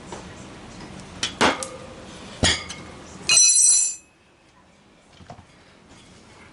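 Steel tyre levers clinking and knocking against a motorcycle wheel rim while a tyre is levered on by hand. There are a few sharp knocks, then a loud ringing clink about three seconds in that stops suddenly.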